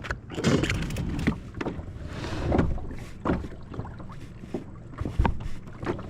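Irregular knocks, clatter and splashing on a small plastic fishing boat as a small bass is brought aboard.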